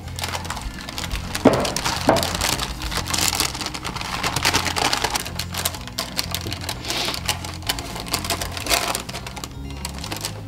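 Parchment paper crinkling and crackling in irregular bursts as a sheet of dried fruit leather is peeled off it, over background music.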